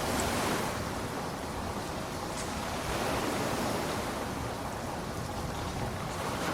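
Steady rain, an even rushing hiss with small swells in level.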